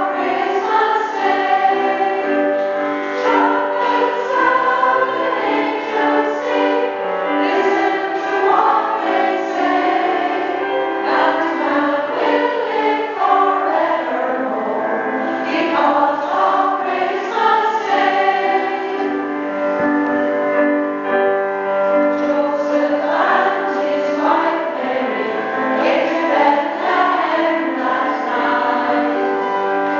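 A women's choir singing in harmony, several voices holding and moving between notes at once, without a break.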